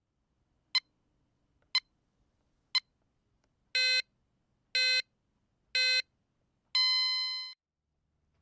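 Electronic beeps from a Keihin-Tohoku Line train-themed alarm clock in a countdown pattern, one a second: four short high pips, then three longer beeps a step lower, then a long tone back at the higher pitch that fades out.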